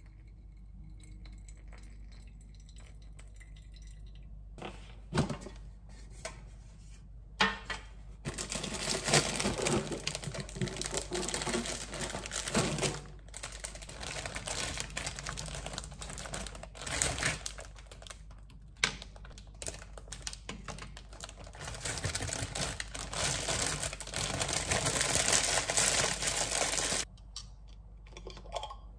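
Crinkling, rustling plastic bag of packaged biscottes (rusks) being handled and opened, with scattered clicks and knocks. The crinkling starts about five seconds in and stops suddenly near the end.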